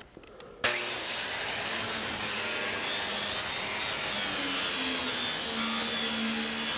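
Angle grinder starting about half a second in, its high whine rising as it spins up, then running steadily as the disc grinds against an aluminum hull plate, taking down a proud mark left by welding on the other side.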